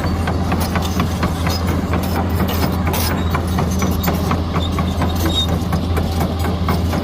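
Hitachi excavator's diesel engine running steadily with a low drone, with many irregular short clicks and knocks over it.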